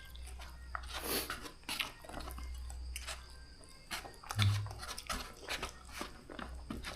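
Close-up chewing and mouth sounds of a person eating noodles: irregular wet smacks and clicks, with a brief low hum from the eater about four and a half seconds in.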